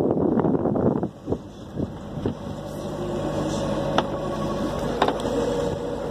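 Sailboat's inboard diesel engine running steadily as the boat motors out, a steady hum that comes up after a loud rush of noise in the first second. Two sharp clicks sound near the middle.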